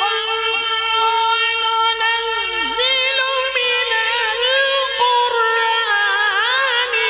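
Male Quran reciter drawing out one long, held note in melodic tilawat style. The pitch stays level, then bends into quick ornamental turns a few seconds in and again near the end.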